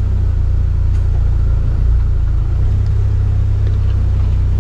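Jeep Wrangler TJ engine idling steadily, a continuous low drone heard from inside the cabin.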